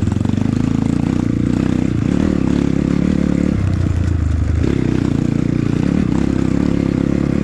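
Honda CRF150L's single-cylinder four-stroke engine running under throttle as the trail bike rides over a rocky dirt track. The engine note drops for about a second in the middle, then picks up again.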